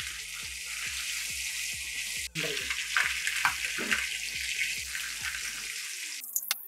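Masala-coated sardines shallow-frying in hot oil on a tawa: a steady sizzling hiss. It cuts out for a moment a little over two seconds in, and dies away near the end.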